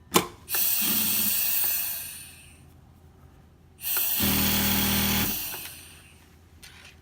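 Industrial flatlock sewing machine with chain cutter working: a sharp click, then two short runs of about two seconds each with a hissing rush that fades out, the second carrying a steady motor hum.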